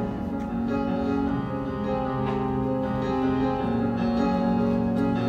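Piano-led music from a live musical-theatre band, mostly held chords with new notes struck every second or so, growing slowly louder.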